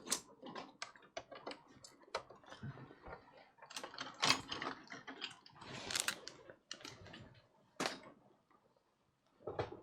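A run of irregular light clicks and clatters from small hard objects being handled, which stop shortly before the end.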